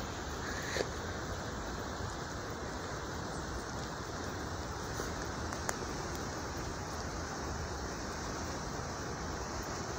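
Avalanche of snow chunks sliding downslope, a steady rushing like a stream, with a faint knock about a second in and another a little past the middle.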